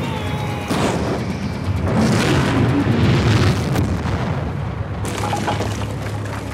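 Film battle sound effects: deep explosions with booming, rumbling blasts and sharp cracks, loudest about two to three and a half seconds in, as a concrete tower block is blown apart. A low sustained film-score drone runs underneath.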